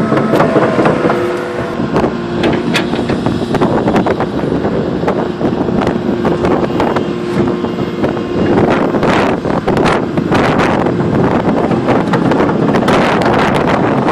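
Komatsu PC220LC-6 excavator's diesel engine running under work, with a steady held tone over the engine noise and scattered sharp clanks and knocks.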